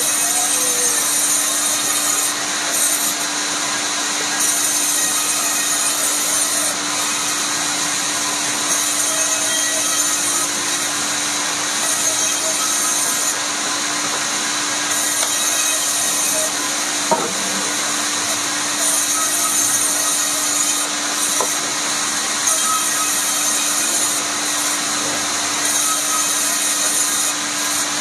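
Woodworking machine running steadily as it works rubberwood, with a constant hum under a dense cutting noise and one sharp knock about 17 seconds in.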